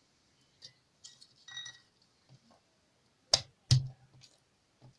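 Unpeeled garlic cloves being crushed with sharp knocks on a hard surface: two loud strikes close together a little past halfway, with lighter taps and a brief ringing clink before them.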